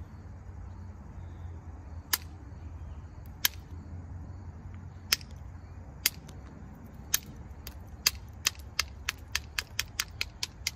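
Flint being knapped: sharp clicks as small flakes come off the edge of a flint biface being thinned. The clicks come singly a second or more apart, then quicken to about four a second near the end.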